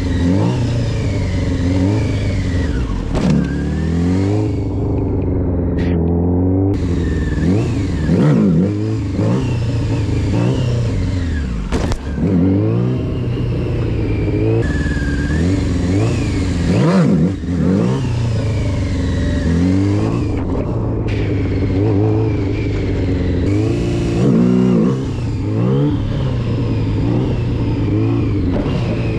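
Motorcycle engine revving up and easing off again and again during low-speed wheelie attempts, the throttle opened to lift the front wheel and then worked gently to hold it up. A few sharp clicks are heard along the way.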